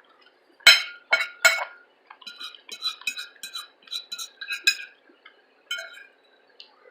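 Eating sounds: a utensil clinks sharply against a dish three times in quick succession, then a run of smaller, quieter clicks and taps.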